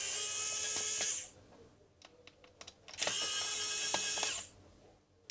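Small cordless electric screwdriver whining in two bursts of about a second and a half each as it backs out small screws, with a few faint clicks between the bursts.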